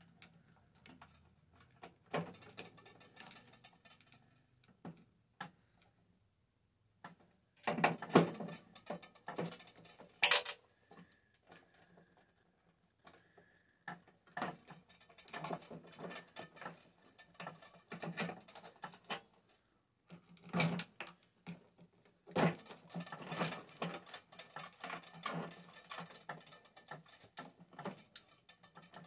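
Intermittent clicks, rattles and knocks of metal parts and tools being handled while a microwave oven is taken apart for scrap, with a loud sharp clank about ten seconds in.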